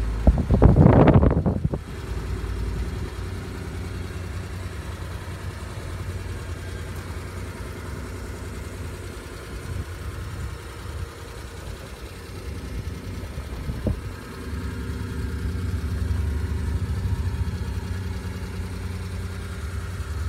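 Suzuki Carry DD51T kei truck's small three-cylinder engine idling steadily, heard from inside the open cab. A loud burst of noise covers it for about a second near the start.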